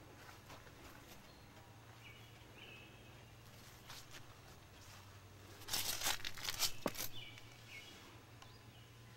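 Rustling and scraping handling noise, loudest about six seconds in, over a low steady hum, with short bird chirps twice in the background.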